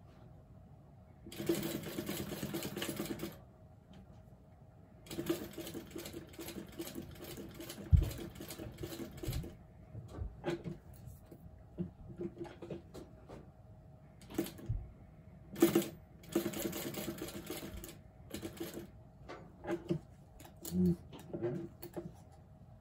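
Typical industrial sewing machine stitching in short start-stop runs, a couple of seconds at most and then only brief spurts, as it sews slowly around the curve of a small fabric heart. A faint steady hum sits under it between runs, with a few sharp low thumps, the loudest about eight seconds in.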